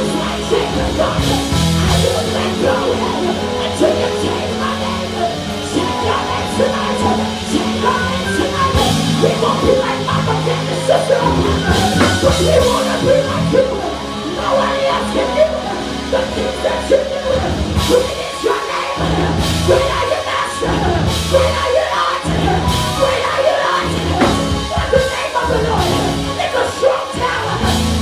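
Live gospel worship music: a woman singing lead into a microphone over a band with drum kit and keyboards.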